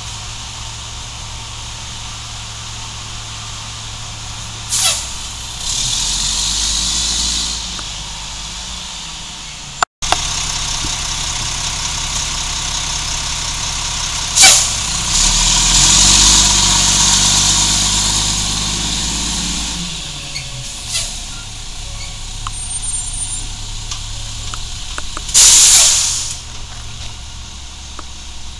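Diesel engine of a Mack MR cabover rear-loader garbage truck idling, revving up briefly a few seconds in. About halfway through comes a sharp air-brake hiss, and the engine works harder for several seconds as the truck pulls away. A second loud air hiss near the end fades out as it drops back to idle.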